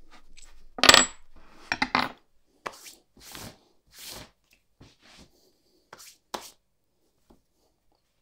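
Small metal padlock parts being set down, clinking and tapping: one sharp metallic clink with a brief ring about a second in, a quick run of clinks near two seconds, then softer scrapes and taps, and two last clicks around six seconds.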